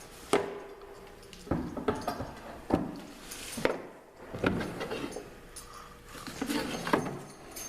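Metal axle rod being pushed and jiggled through the plastic rear wheel and hub of a ride-on toy monster truck: a series of irregular clinks and knocks, some with a short metallic ring.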